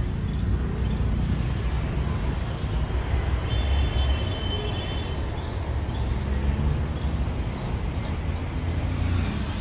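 Steady low rumble of background road traffic, with a faint high tone about four seconds in and again near the end.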